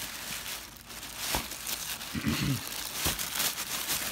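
Crinkling and rustling of tissue wrapping paper being pushed aside by hands inside a cardboard shoe box, a dense run of small crackles.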